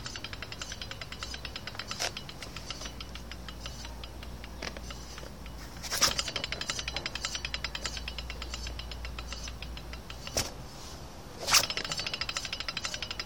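Front wheel of a 150 cc motorbike making an abnormal rapid ticking, a fast train of clicks that slows and fades. It restarts several times with a sharp knock.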